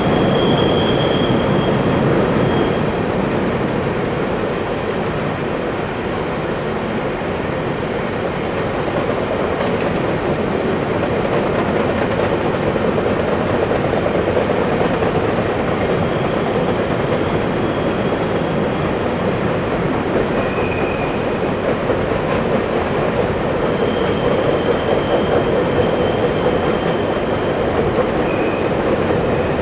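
CP coal hopper cars rolling steadily across a steel deck truss bridge: a continuous, even rumble and rattle of wheels on rail, with faint high-pitched wheel squeals a few times.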